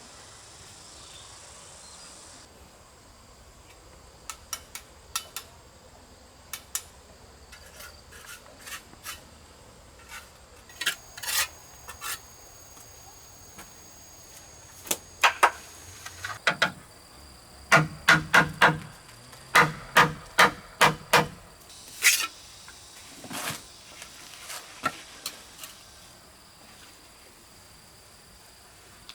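Irregular sharp taps and knocks from hand work on the build, with a quick run of about a dozen heavier strikes around the middle, over a faint steady insect drone.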